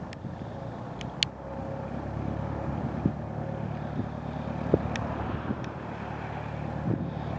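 Cessna 172 Skyhawk's piston engine and propeller running at low power as the plane taxis, a steady low drone that grows a little louder about two seconds in. A few brief sharp clicks sound over it.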